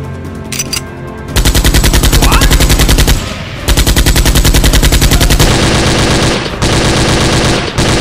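Background music, then automatic machine-gun fire about a second and a half in: two long bursts of rapid shots with a short break between them, then near-continuous firing over the music.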